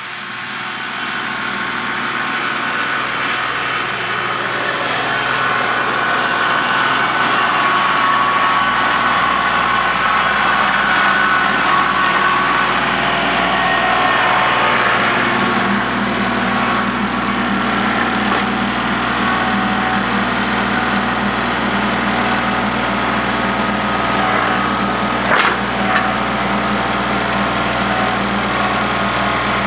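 Engine of a loader fitted with pallet forks running steadily, getting louder over the first few seconds and running heavier from about halfway on. A short sharp clank about 25 seconds in.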